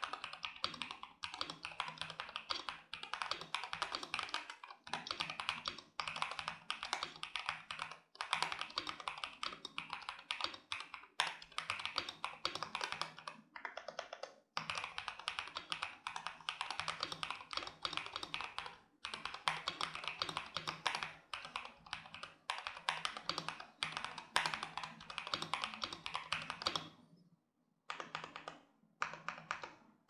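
Typing on a KBDfans 67 Lite R3 mechanical keyboard with lubed Harimau tactile switches on a polycarbonate plate and ePBT keycaps. Fast keystrokes come in runs broken by short pauses, and each has a slightly high-pitched clack as the switch bottoms out on its extended pole. A longer pause falls near the end.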